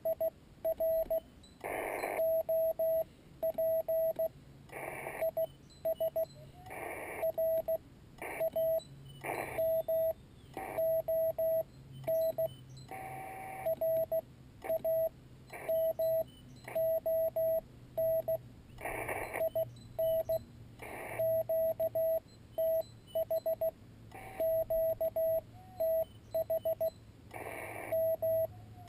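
Morse code from a Yaesu FT-817ND transceiver: a steady mid-pitched tone keyed on and off in dots and dashes, broken several times by short stretches of receiver hiss.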